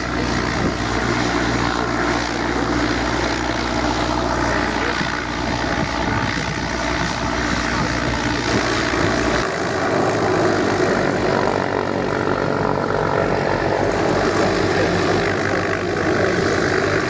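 Cessna 172R's propeller engine running steadily at low taxiing power. The deep low hum drops away a little over halfway through.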